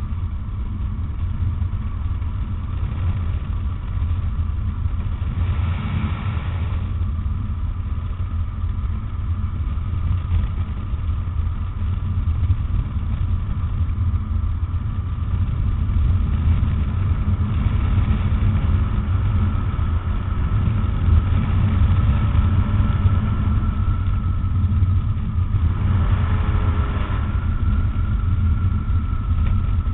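Rotax 912 four-cylinder, four-stroke engine and pusher propeller of a Tanarg microlight trike, running steadily in cruising flight. It drones with a deep rumble and a steady higher whine, a little louder in the second half.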